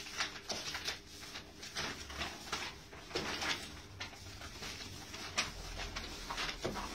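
Paper ballots being unfolded and handled by several people, a run of short, irregular rustles and crinkles.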